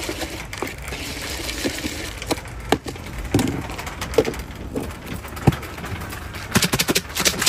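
Jhal muri (puffed rice and chanachur) being stirred and tossed in a plastic tub: dry rustling with scattered knocks and clicks of the plastic, then a quick run of clicks near the end as a plastic tub and lid are handled. A low steady hum lies underneath.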